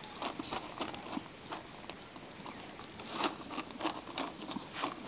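Horse eating feed out of a bucket: irregular crunching chews, several a second, a little louder in the second half.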